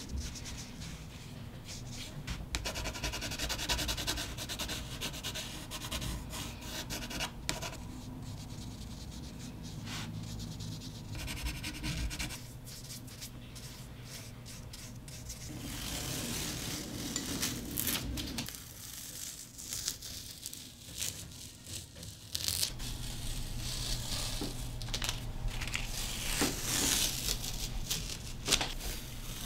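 Close-up sounds of painting: a paintbrush rubbing and scratching on paper, with paper crinkling as sheets are handled. The textures change every few seconds over a faint steady hum.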